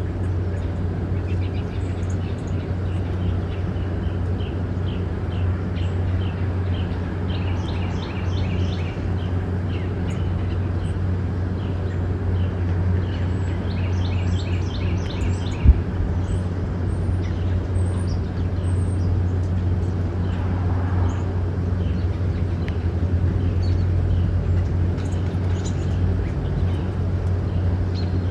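Red-bellied woodpecker calling in several bursts of quick, high repeated notes over a steady low rumble, with one sharp knock about halfway through.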